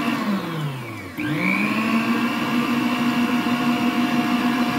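Frigidaire stand mixer's motor whining as its beater mixes flour into cake batter. The pitch drops over the first second, climbs back up, then holds steady as the speed is turned down and up again.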